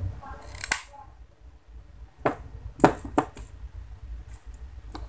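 About half a dozen sharp plastic clicks and knocks as a small plastic bottle and its screw cap are handled and set down on a hard tabletop, the loudest about a second in and near the middle.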